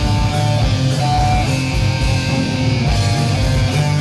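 Rock band playing live with no vocals: electric guitars, bass guitar and a drum kit with a steady kick drum beat.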